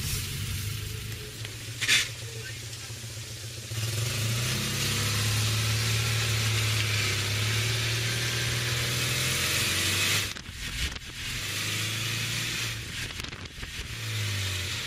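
Small Citroën air-cooled flat-twin engine running as the car drives along, heard from inside the car over wind and road noise. It pulls louder about four seconds in and eases off briefly around ten seconds in, with a short click near two seconds in.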